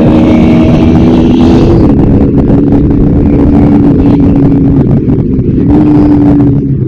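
Bajaj Pulsar NS160's single-cylinder engine running hard while riding, loud and steady. Its pitch drops about two seconds in and climbs again near the end.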